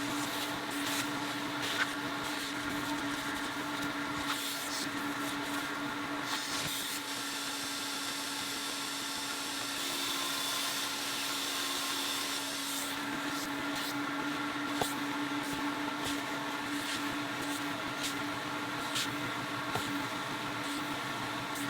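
Vacuum cleaner motor running with a steady hum, with scattered light clicks and a stretch of hiss in the middle.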